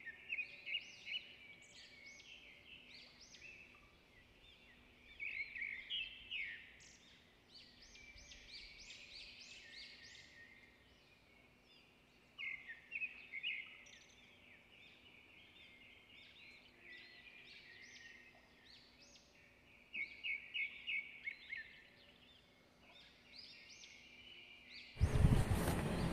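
Small birds chirping faintly, in clusters of quick repeated high calls with gaps between, over a faint steady hum.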